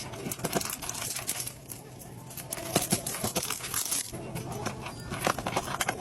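Toy packaging being handled and opened: plastic crinkling and tearing, with many small clicks and taps.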